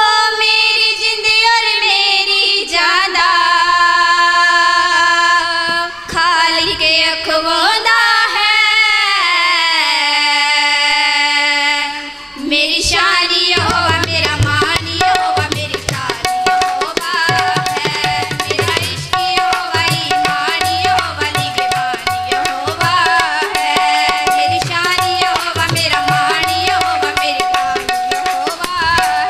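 Two female voices singing a Punjabi Christian devotional song (Masihi geet), opening with long held, wavering notes. About 13 seconds in a tabla comes in with a quick steady rhythm: deep bass strokes from the bayan and a repeated ringing pitch from the dayan, under the continuing singing.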